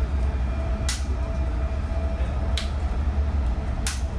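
BART train car running, heard from inside the car: a steady low rumble with a thin steady hum above it. Three sharp clicks come through, about a second in, past two and a half seconds, and near the end.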